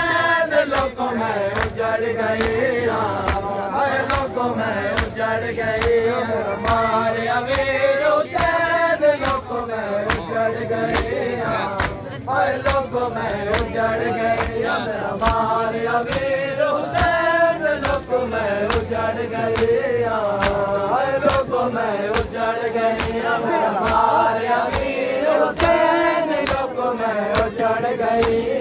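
A large group of men chanting a noha, a Shia mourning lament, in unison. A steady beat of open-handed chest-beating (matam) slaps keeps time with it.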